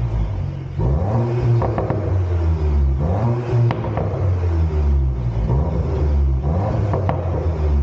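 Cupra Formentor's engine revved repeatedly while stationary, its pitch rising and falling in short blips through an aftermarket asg valve exhaust with quad tailpipes.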